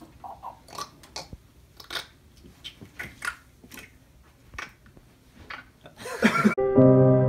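Scattered soft clicks and short rustling sounds at irregular intervals, then a brief louder burst, and calm background music with long held notes comes in about six and a half seconds in.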